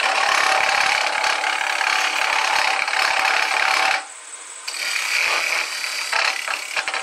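Turning tool cutting a spinning wooden handle blank on a wood lathe, a steady shaving hiss. The cut breaks off briefly about four seconds in, then resumes.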